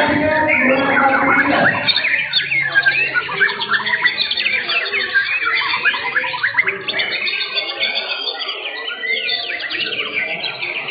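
Several caged white-rumped shamas (murai batu) singing at once, in a dense, unbroken stream of quick, varied chirps and whistles.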